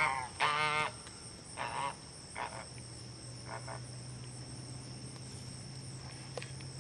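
Geese honking, a few loud harsh calls in the first second and then fainter scattered honks around 2 and 3.5 seconds in. The honking is agitated: the geese are aggravated. Under it a steady high-pitched insect chorus runs throughout, with a low hum joining about a third of the way in.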